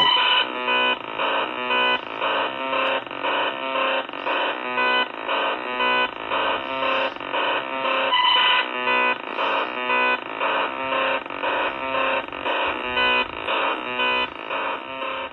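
Loud electronic buzzing tone pulsing on and off in an even rhythm, a little over twice a second.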